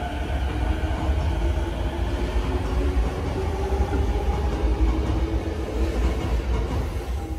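JR Nambu Line E233-series electric commuter train running along the platform: a steady low rumble of wheels on rail, with a motor whine that slowly rises in pitch as the train gathers speed.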